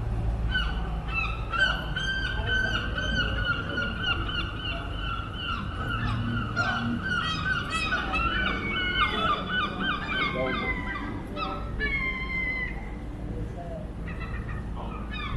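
Gulls calling loudly: long wailing cries, breaking into a run of short yelping notes about two-thirds of the way through, over a low street rumble.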